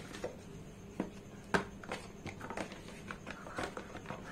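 Cardboard packaging being handled: light rustling with scattered taps and clicks, the sharpest about a second and a half in.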